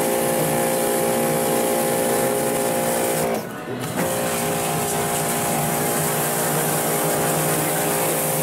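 Bosch AQT 45-14 X electric pressure washer running: its motor and pump give a loud, steady whine under the hiss of the 140-bar water jet. The sound cuts out briefly about three seconds in and starts again about half a second later.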